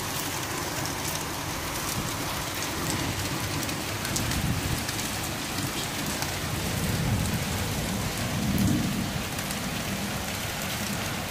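Steady rain falling and splashing on hard tiled ground, with many small drop ticks. A low rumble swells under it near the middle and again a little later.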